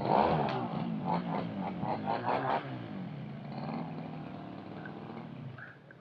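Small two-stroke brush-cutter engine running: loud, revving in quick blips for the first couple of seconds, then running more steadily and fading away.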